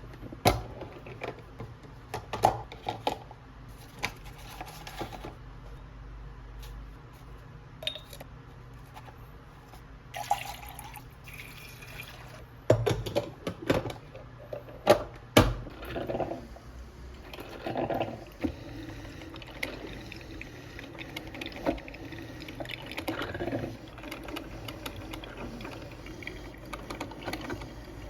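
Water sounds in a small room, broken by many scattered clicks and knocks, the sharpest about half a second in and around the middle.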